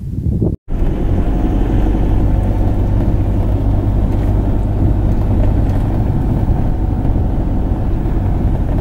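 Steady engine and road noise of a van driving, starting abruptly about half a second in.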